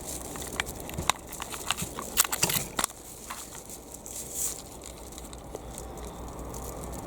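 Potatoes and a carrier bag being handled for weighing: a quick run of clicks, knocks and rustles for about the first three seconds, then only a few faint ticks.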